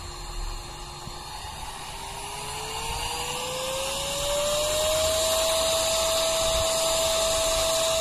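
Motor of a CENZIMO 110,000 rpm cordless 3-in-1 vacuum/duster/blower running with a steady whine. About two seconds in, the whine rises in pitch over roughly three seconds as the motor speeds up, then holds steady and louder.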